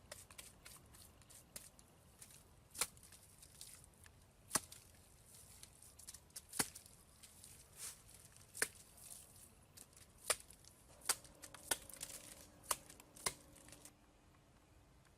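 Dry snapping and tearing: about ten sharp snaps, a second or two apart and closer together near the end, with crackly rustling between them. The sounds stop shortly before the end.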